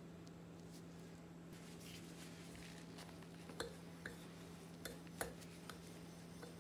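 A small wire whisk stirring flour and cornmeal in a glass measuring bowl, clinking lightly against the glass several times from about halfway through, over a faint steady hum.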